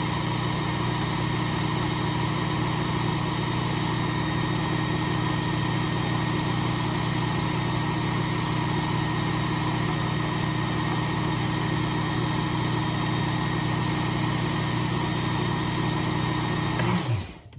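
Work Sharp Ken Onion electric belt sharpener with Blade Grinder attachment running at steady speed as a knife edge is passed over the abrasive belt; the motor winds down with falling pitch near the end.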